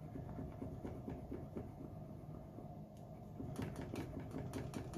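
Rapid, steady scratching on a scratch-off card to uncover its number, with the table rattling under it. Sharper clicks join about three and a half seconds in.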